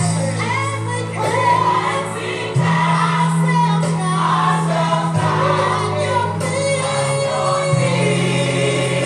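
Gospel music: a choir singing over held bass notes that change every two or three seconds.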